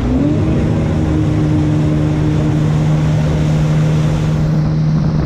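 Jet ski engine throttling up as it pulls a water skier out of the water, its pitch rising in the first moment and then holding steady at high throttle. The rush of its wake and spray runs underneath.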